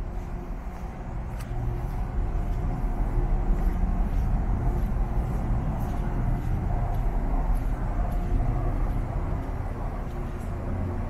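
Steady low rumble of ship machinery on a high-speed ferry's open deck, with a faint steady hum above it and a few light clicks.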